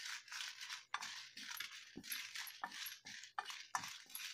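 A spatula stirring dried red chillies in a dry kadai while they dry-roast: repeated short scraping strokes, about two a second, with the light rattle of the chillies on the pan.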